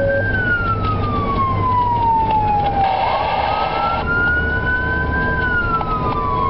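Fire department emergency vehicle's siren in wail mode, its pitch climbing slowly and then falling in cycles of about five seconds. It is heard from inside the responding vehicle over steady engine and road rumble.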